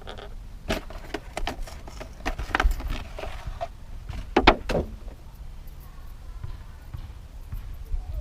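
Small hardware being handled: a string of sharp clicks and clacks from the bug screen's spring clips and the vent parts, the loudest about four and a half seconds in, over a low rumble.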